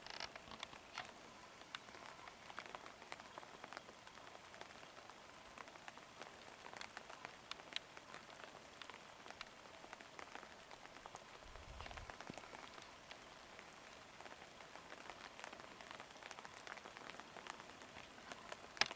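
Faint, steady water noise full of small scattered ticks and patters, like water running and dripping over stones.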